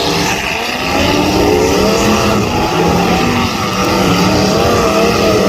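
Demolition derby car engines running and revving, several at once, their pitch rising and falling.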